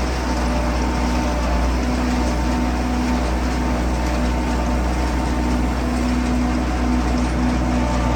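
Heavy farm machine's engine running steadily: a constant low drone with a steady hum, unchanging in pitch.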